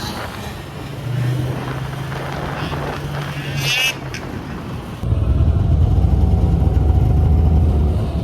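Snowmobile engines running steadily. About five seconds in the sound changes abruptly to a louder, deeper engine note.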